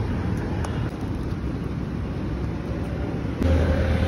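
Steady low rumble of outdoor street noise. About three and a half seconds in it grows louder, with a deep hum and a faint steady tone.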